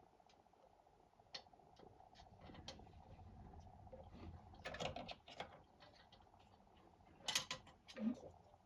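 Faint metallic clicks and small knocks of the new glow plug and tools being handled as it is fitted into a diesel heater, with louder clicks about five seconds in and again near the end.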